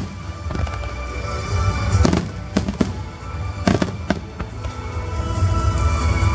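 Fireworks shells bursting in several sharp bangs, a cluster around two to four seconds in, over music with a heavy bass line.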